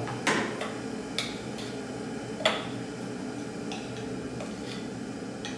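Scattered light clinks and taps of a spoon against a tin of powdered formula and a plastic baby bottle as milk is made up, the loudest about two and a half seconds in, with fainter ticks later over a steady low hum.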